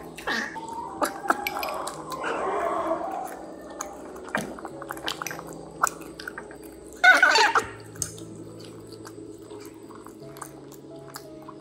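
Metal fork and utensils clinking and tapping against porcelain rice bowls, many small sharp clicks, over soft background music. A short, louder vocal sound comes about seven seconds in.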